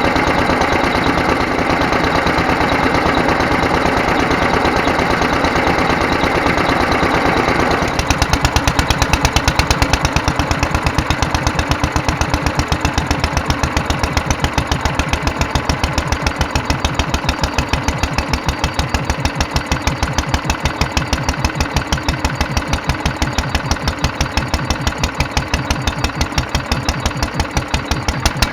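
Petter AS single-cylinder stationary petrol engine running on its freshly rebuilt Solex 26 FV carburettor, which is working. About eight seconds in, the sound changes abruptly to a slower run of distinct, evenly spaced firing beats.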